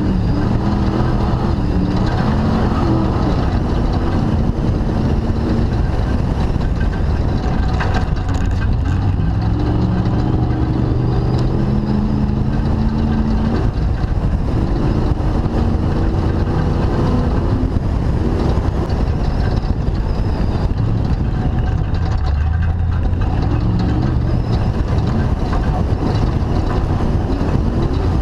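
Off-road race car engine running hard, its pitch climbing and dropping again and again as the driver revs through the gears, over a constant rush of noise.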